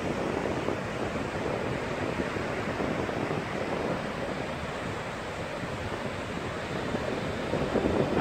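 Steady wind noise on the microphone mixed with ocean surf, swelling slightly near the end.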